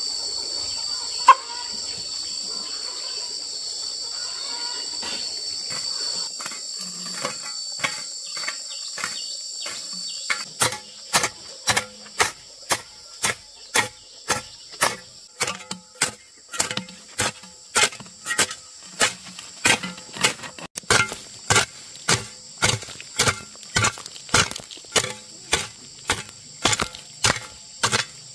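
Insects keep up a steady, high, even buzz. About ten seconds in, a run of sharp chopping strikes starts at roughly one to two a second and holds that pace.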